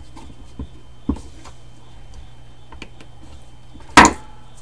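Handling noise of a brake caliper and hand tools on a workbench: a few light clicks and taps, then one loud knock about four seconds in as the caliper and screwdriver are set down on the bench. A steady low hum runs underneath.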